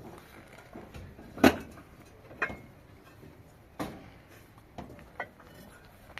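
A few separate knocks and bumps at uneven intervals, the loudest about one and a half seconds in.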